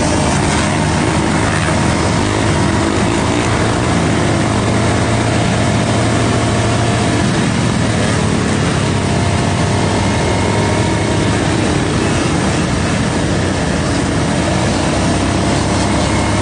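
Sport motorcycle running steadily while being ridden, its engine drone mixed with constant wind rush on the microphone.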